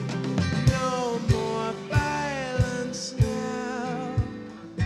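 Live band playing a country-rock song on electric guitar, acoustic guitar, drum kit and keyboard. A lead line bends and wavers in pitch, with vibrato near the end, over a steady drum beat.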